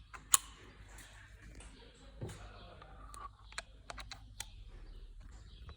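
Scattered sharp clicks and light knocks of castor-wheel bushings and parts being handled, as the bushings are moved from the old castor wheels onto the new ones. The loudest click comes just after the start, with a quick cluster of clicks a little past the middle.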